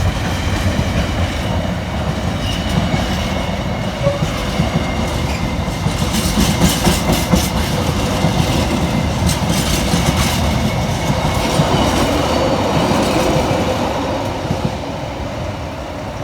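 A train running on the track, its wheels clattering over rail joints, with the sound easing off near the end.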